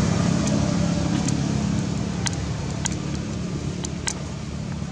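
A motor vehicle engine running steadily: a low, even hum that fades slightly, with a few sharp clicks scattered through it.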